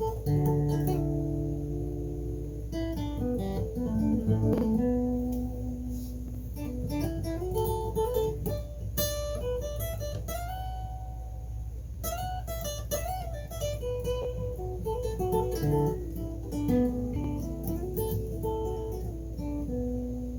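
Guitar playing a slow blues instrumental passage of single-note lines and slides over a steady low hum, settling on a held low note near the end.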